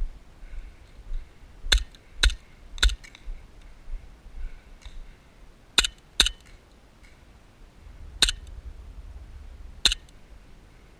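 Airsoft gun firing seven single shots, each a sharp click-pop, spaced unevenly: three in quick succession, a pair, then two lone shots.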